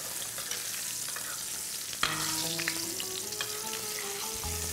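A flour-dusted lemon sole fillet sizzling as it shallow-fries in hot vegetable oil, browning on its first side. Light clicks of metal spoons against the stainless steel pan come through the hiss.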